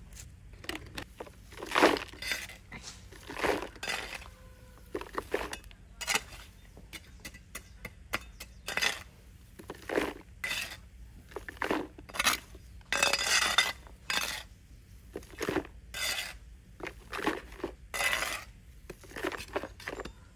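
Hard objects knocking and scraping against each other in irregular taps, roughly one a second, with a longer scrape about two-thirds of the way through, like utensils clinking on dishes during hand work.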